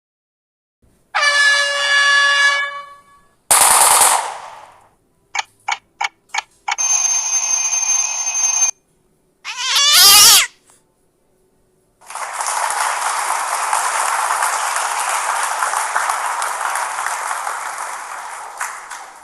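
A run of separate stock sound effects with short silences between them: a pitched tone, a short burst, about five quick clicks, a steady high tone, a fast sweep, then a long even rushing noise of about seven seconds.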